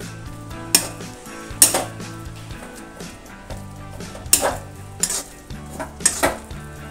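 Perforated metal skimmer spoon scraping and knocking against an aluminium kadhai, about six strokes at uneven intervals, as a thick semolina dough is stirred and pressed over the heat. The semolina is being cooked until it dries out.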